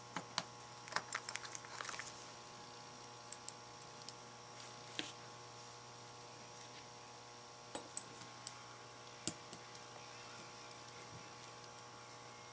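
Light metallic clicks and taps of a hex key working bolts into a painted steel shaft box, in small irregular clusters, over a faint steady hum.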